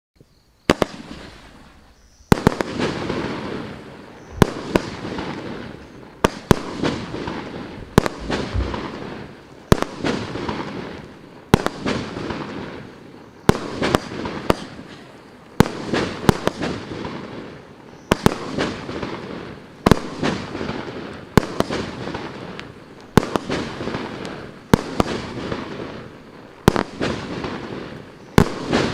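Maxsem SB 19-02 firework battery firing shot after shot, a sharp bang about every two seconds. Each bang is trailed by a fading rush of noise.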